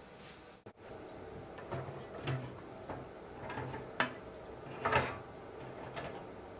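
Metal parts of a kerosene lamp knocking and rattling as its cylindrical chimney housing is tilted back off the fuel tank, with a few sharp clanks, the loudest about four and five seconds in.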